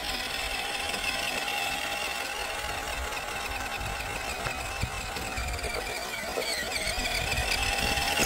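MN78 Jeep Cherokee RC crawler's 280 brushed electric motor and gearbox whining as it drives over grass and leaves, the pitch rising and falling a little with throttle.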